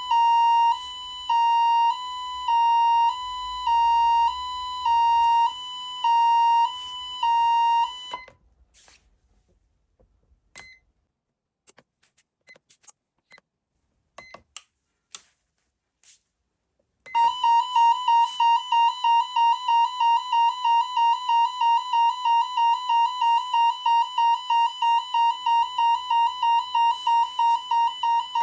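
SoundOff Signal nERGY 400 electronic siren amplifier sounding a two-tone hi-lo pattern, about one high-low cycle a second, which stops about eight seconds in. After several quiet seconds with a few faint clicks, a fast pulsing siren tone, about three pulses a second, starts and runs on.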